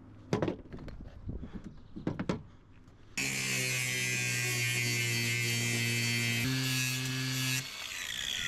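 A handheld electric power tool motor runs steadily for about four and a half seconds. Its pitch steps up near the end, then it cuts off and winds down with a falling whine. A few light knocks of handling come before it starts.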